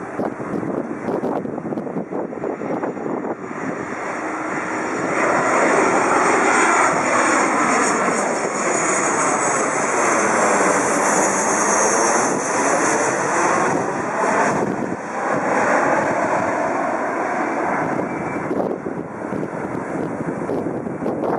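Boeing 737 airliner flying low overhead on landing approach, its jet engines swelling to a peak as it passes and easing as it moves away. A high engine whine falls in pitch as it goes by.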